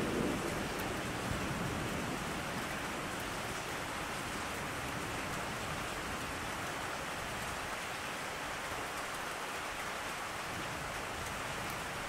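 Steady rain falling, with a low thunder rumble dying away in the first second.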